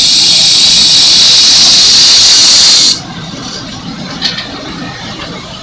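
Loud steady hiss, such as spray or venting at a house fire, that cuts off abruptly about three seconds in, followed by a single sharp click about a second later.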